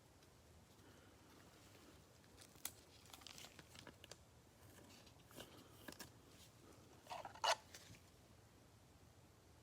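Faint handling of trading-card packaging and cards: soft crinkles, taps and a brief tearing rustle, loudest about three-quarters of the way through.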